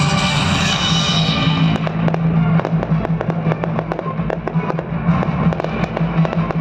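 Fireworks going off over music: a rapid string of sharp pops and cracks from about two seconds in, as small shells and crackling stars burst.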